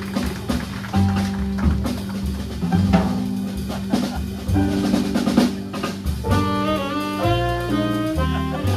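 Live jazz band playing: drum kit with snare hits, bass notes and keyboard. A sustained wind-instrument melody, likely saxophone, comes in about six seconds in.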